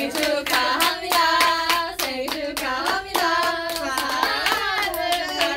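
A group of young women singing a birthday song together while clapping along in steady time.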